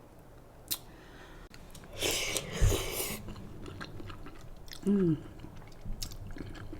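Close-up eating of instant noodles and chicken strips: wet chewing and biting with small clicks, a louder noisy burst lasting about a second a couple of seconds in, and a brief hum falling in pitch near five seconds.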